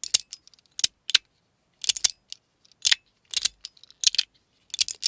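Schrödinger's Cat magnetic fidget slider snapping back and forth in sharp, crunchy clicks, about one or two a second and some in quick pairs. The magnets pull hard enough to drag the ball-and-spring detent along, so each magnet hit crackles.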